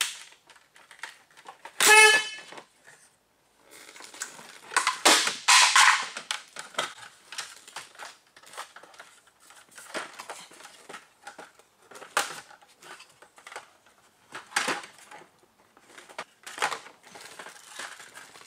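Plastic dashboard trim of a Citroën Xsara being worked loose and lifted out by hand: irregular knocks, clicks and rustling of panels and clothing. About two seconds in, a short, loud pitched tone is the loudest sound.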